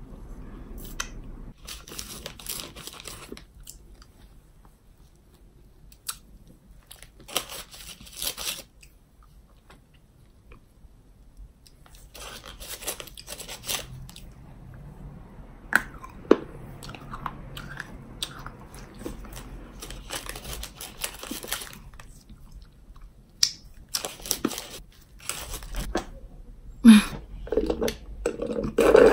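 Candy wrappers crinkling and tearing as small wrapped candies are unwrapped, with close-up chewing in between. Near the end, a few louder sounds as a drink is sipped through a straw from a plastic cup.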